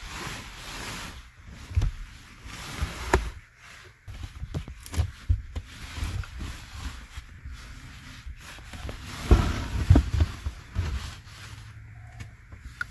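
A person squeezing through a tight attic access hole: boots and clothing scrape and rustle against the wooden framing, with irregular knocks and bumps. The loudest bumps come about three-quarters of the way through.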